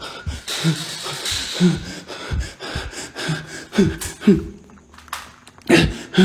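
A man breathing hard and muttering in short, quick bursts. A loud thump near the end.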